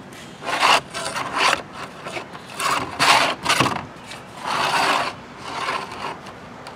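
Nylon starter rope rubbing and sliding as the recoil spring pulls it through the eyelet and winds it onto the pulley of a lawn mower's plastic recoil starter, mixed with the housing being handled on the bench. It comes as a handful of short, uneven rubbing bursts.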